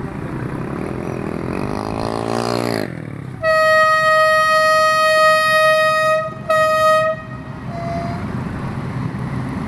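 A diesel locomotive's air horn gives one long blast of about three seconds and then a short one, each a single steady note. Just before it, a motorcycle engine revs up, rising in pitch as it pulls away.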